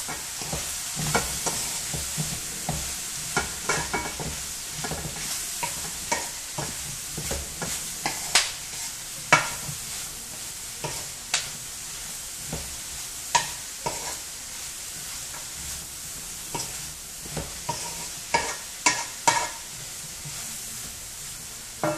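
Chicken gizzards and onion sizzling in oil in a large pan, with a steady hiss, while a wooden spatula stirs them, scraping and knocking against the pan in irregular clicks.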